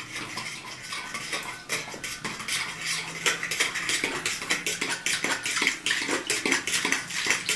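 An egg being whisked into salted water in a bowl: rapid, continuous clicking of the utensil against the bowl.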